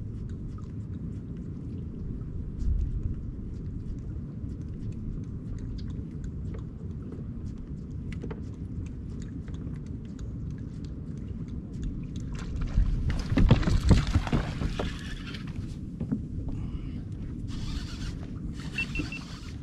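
Steady low rumble of wind on the microphone, with faint scattered ticks. About thirteen seconds in comes a louder, noisy stretch of a couple of seconds, around the time another fish takes the topwater lure.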